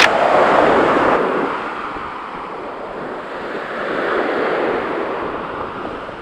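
Atlantic surf breaking on the beach, loudest at the start and swelling again about four seconds in.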